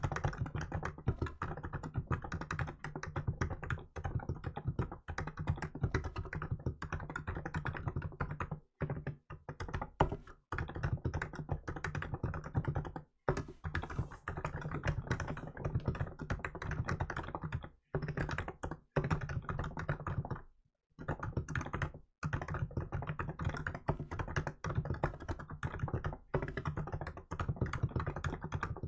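Continuous fast typing on a Hansung GK868B electrostatic capacitive keyboard fitted with milk keycaps: a dense run of keystrokes broken by a few brief pauses.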